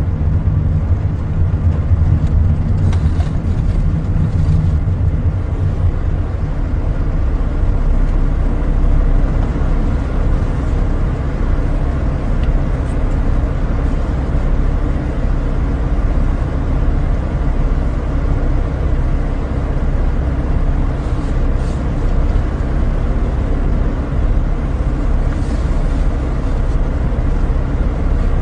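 Steady low rumble of a car's road and engine noise heard inside the cabin while driving.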